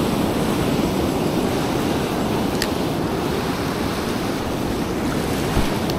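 Ocean surf breaking and foamy wash running over the shallows: a steady rushing noise, with one light tick about halfway through.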